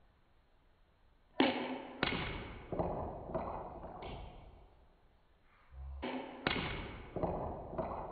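Ping pong ball struck by a paddle and bouncing on the table, a run of sharp knocks each ringing briefly in the room: about five at an even pace in the first half, then about four more near the end.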